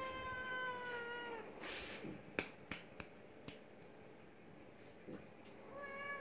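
Young Oriental Shorthair cat meowing: one long, slightly falling meow in the first second and a half, then a shorter meow near the end. A few sharp clicks come in between.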